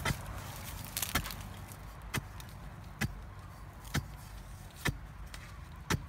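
A long-handled digging bar jabbed down into a narrow hole in dry, stony soil, striking about once a second. Each stroke is a short thud with some grit scraping.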